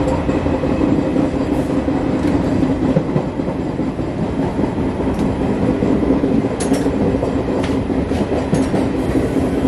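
Local passenger train running at speed, heard at an open coach doorway: a steady, loud rumble of the wheels on the rails with a low hum and a few sharp clacks over the rail joints.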